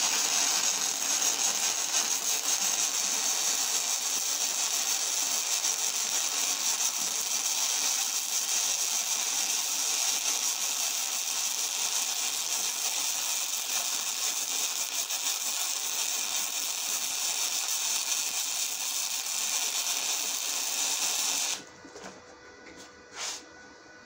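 Wire-feed welding arc from a spool gun, a steady crackling hiss as a long bead is run on 1/8 inch steel-or-aluminum plate, cutting off abruptly about 21 seconds in when the trigger is released. A couple of small clicks follow.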